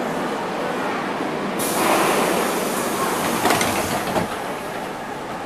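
Sliding doors of a Moscow Metro 81-740/741 'Rusich' car closing: a hiss starts about a second and a half in, followed by a few sharp knocks as the door leaves shut, over the rumble of the train and station.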